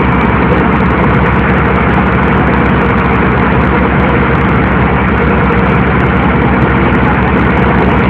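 Passenger boat's engine running at a steady, unbroken low drone, heard from inside the cabin, with a constant rushing noise over it.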